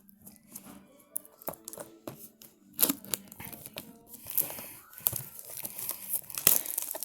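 Knife cutting open a cardboard trading-card blaster box, with irregular tearing, scraping and crinkling of its wrapping, which grows louder in the second half.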